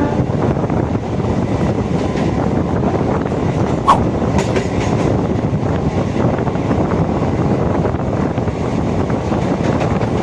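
Passing local train coaches rushing by at close range, a steady loud rumble with wheel clatter on the rails. About four seconds in there is a single sharp metallic clank.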